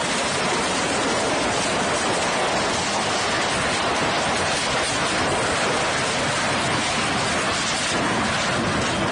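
Fast-flowing floodwater of a swollen river rushing loudly and steadily around a collapsed building.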